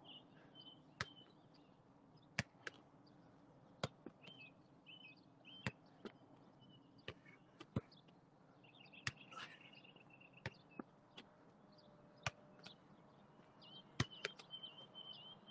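A football kicked again and again with the side of the foot in side-foot volleys, a sharp tap roughly once a second at an uneven pace, heard faintly.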